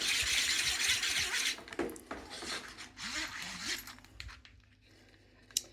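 A fully 3D-printed plastic ratchet strap reel being cranked to wind in a strap, with a fast, dense rasping that stops about a second and a half in. Then come scattered plastic clicks and handling knocks, and one sharp click near the end.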